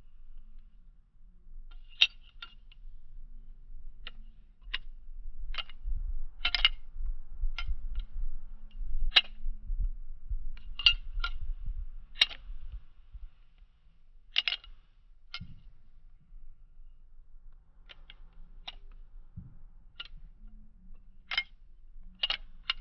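Balisong (butterfly knife) being flipped and caught, its handles and blade clacking in sharp metallic clicks at an irregular pace of about one to two a second.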